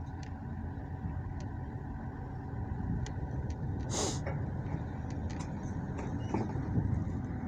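Steady low rumble of a running motor vehicle, with one short, sharp hiss about four seconds in and a few faint clicks.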